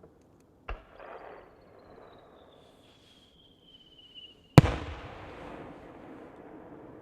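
An aerial firework shell is launched with a sharp thump, then climbs with a thin whistle that slowly falls in pitch. About four seconds after the launch it bursts with a loud bang, and the bang trails off in a long rumbling echo.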